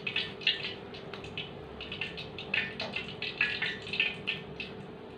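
Hot oil in a frying pan sizzling and crackling with irregular pops as filled bread rolls fry, over a faint steady hum.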